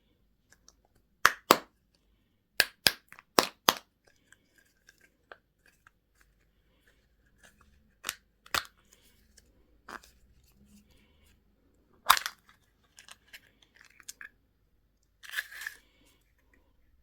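Sharp snapping clicks and cracks of plastic toy-box candy packaging being handled and opened, several in quick pairs early on and single ones later, with a short crinkly crunch near the end.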